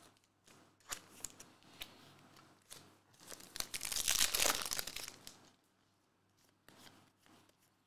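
Wrapper of a Panini Hoops basketball card pack being torn open and crinkled, a noisy rip lasting about two seconds around the middle, after a few light ticks of cards being handled.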